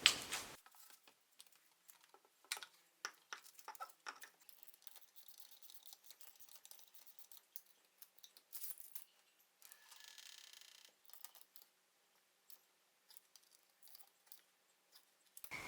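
Faint, scattered light clicks and taps, with a brief soft hiss about ten seconds in.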